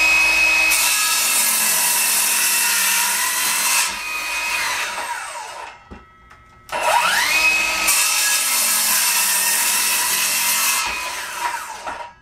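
Ryobi 18V One+ brushless cordless circular saw making two quick cuts through wood: each time the motor whines up to speed, runs steadily through the cut for about five seconds, then winds down. The second cut starts about six and a half seconds in.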